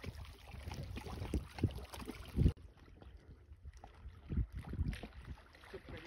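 River water lapping, with wind buffeting the microphone in irregular low gusts. About two and a half seconds in the sound cuts abruptly to a quieter, duller stretch.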